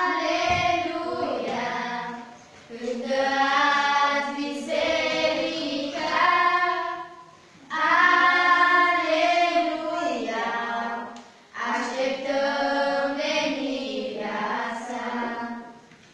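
A small group of young female voices singing a Romanian neo-Protestant hymn together, unaccompanied, in four long phrases that end near the close.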